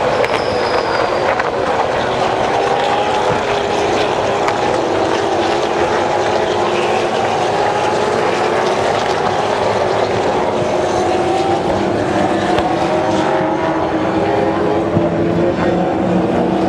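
Several V8 Supercar V8 engines running at racing speed, a steady drone of overlapping engine notes that slowly climb in pitch.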